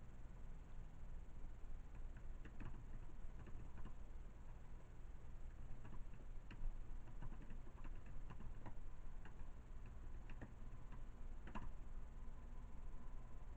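Faint, irregularly spaced light clicks and taps over a low steady hum.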